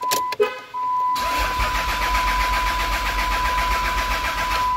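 A diesel pickup engine being cranked by its starter for about three and a half seconds without firing, with a steady electronic tone from the dash underneath. The starter begins about a second in after a few key clicks and stops near the end, with no catch or idle.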